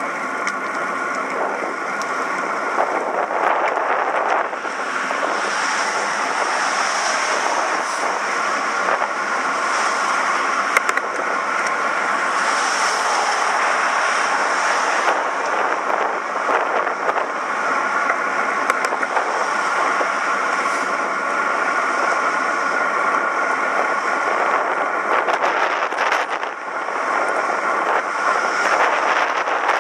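Steady road noise of a bicycle being ridden along a road: tyre rumble and rushing air, with no clear changes.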